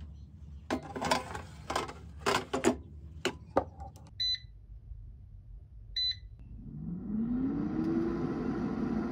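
COSORI 3.5 L air fryer: a run of clatters and clunks as the basket is handled and pushed in, two short beeps from its touch panel, then its fan starts with a rising hum and settles into a steady whir as the 150 °C cooking programme begins.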